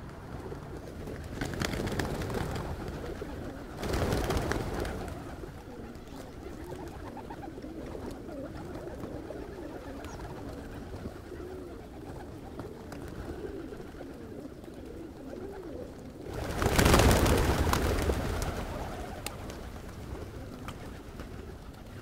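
A large colony of pigeons cooing continuously. Rushes of flapping wings cut through it: two short ones about two and four seconds in, and a louder, longer one about seventeen seconds in.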